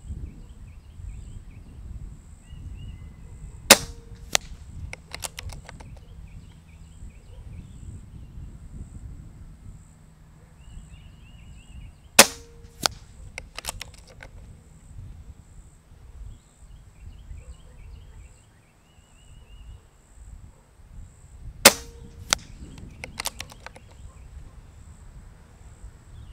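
Gamo Urban .22 PCP air rifle, fitted with its Whisper Fusion moderator, firing three shots about nine seconds apart. Each shot is a sharp crack followed about half a second later by a fainter crack, then a quick run of light clicks as the action is cycled for the next pellet.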